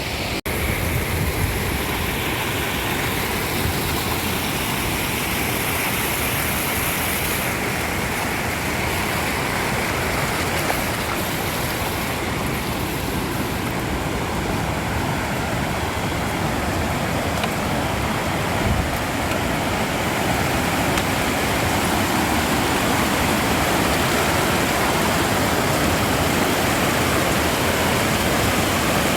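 Steady rushing of a swollen mountain creek, its flow high and rising with snowmelt. The sound grows slightly louder about two-thirds of the way through.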